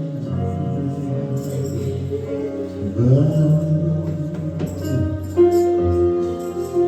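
Gospel worship music: sustained held chords with a sung vocal line, a slow swelling phrase starting about three seconds in.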